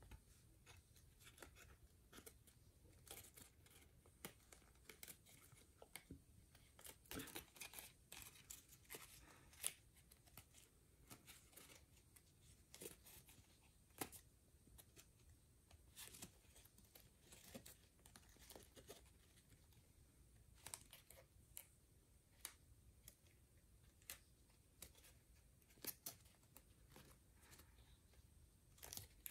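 Faint, irregular crackles and crinkles of paper being pinched and creased by hand as small origami folds are made.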